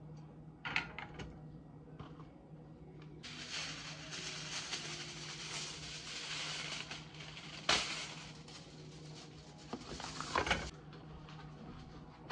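Metal utensils knocking against a frying pan on a stovetop a few times, with a steady hiss through the middle several seconds that cuts off suddenly.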